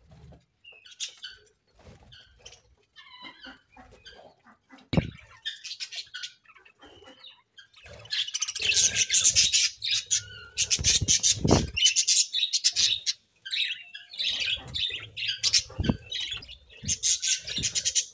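Budgerigars chattering and chirping in a quick, busy warble, sparse at first and much denser and louder from about halfway through. A few soft low thumps are mixed in.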